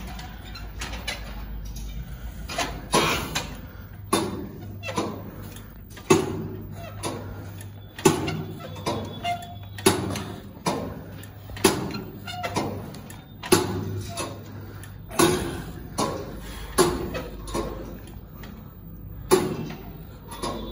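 Leg extension machine worked through repetitions: a sharp clank about every two seconds as the weights move, over a steady low hum.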